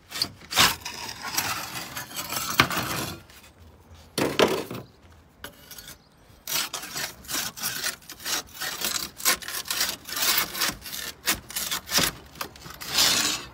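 Steel slate ripper worked back and forth under roof slates, metal scraping on slate in repeated strokes with a few sharp clicks, as it hooks for the nails of a broken slate. There is a lull near the middle, then quicker strokes.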